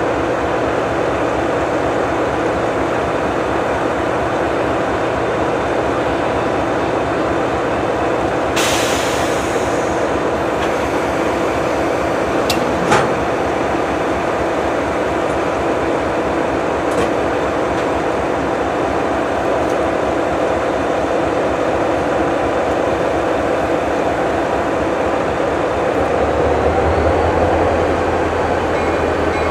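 Train standing at a grade crossing: a steady mechanical rumble with a fast low throb. A short burst of hiss comes about nine seconds in, and a deeper hum joins near the end.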